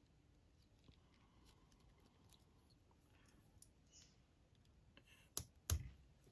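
Faint ticking as thread and materials are handled, then two sharp snips about a third of a second apart near the end: small fly-tying scissors cutting at the fly in the vise.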